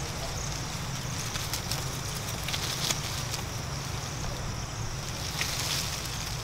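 Steady low rumble of wind on the microphone, with faint scattered rustles and snaps of leaves and twigs as macaques climb through a small tree.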